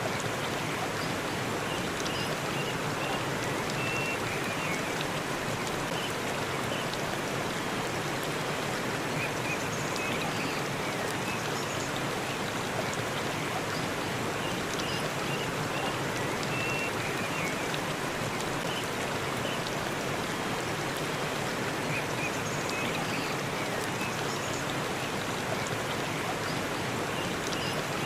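Waterfall pouring in a forest: a steady, unbroken rush of falling water.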